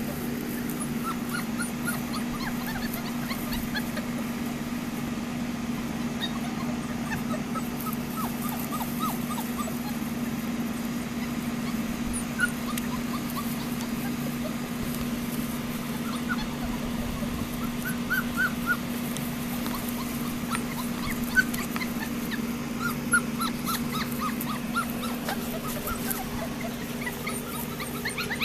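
Gordon setter puppies whimpering and yipping in short, high squeaks, scattered and more frequent in the second half, over a steady low hum.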